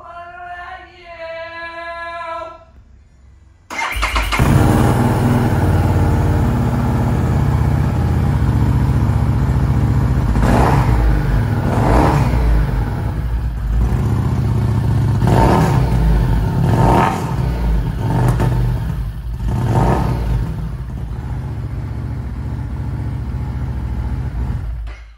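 Harley-Davidson motorcycle's V-twin engine started about four seconds in after a short whine at switch-on, idling with the throttle blipped several times, then shut off sharply near the end.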